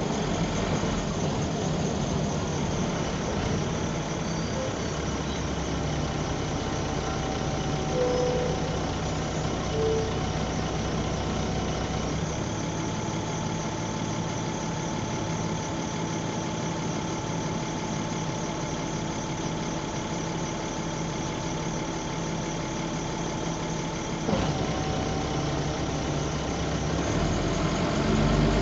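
Bus diesel engine idling, heard from the back seat inside the bus. Its deep low hum thins out about twelve seconds in, comes back with a click around twenty-four seconds, and grows louder near the end.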